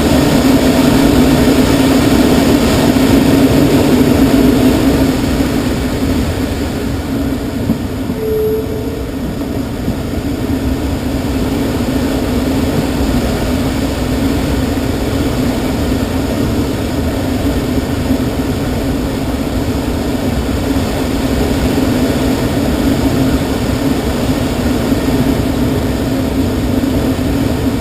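Steady rush of air past the cockpit of a glider in flight, with no engine. It is loudest at first, eases off a few seconds in, then slowly builds again as the airspeed changes.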